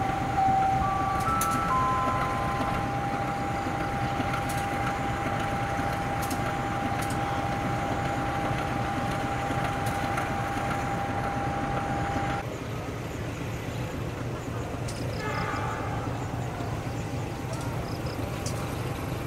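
CC 203 diesel-electric locomotive idling while standing with its train, a low steady rumble. A steady high whine rides over it and cuts off abruptly about twelve seconds in.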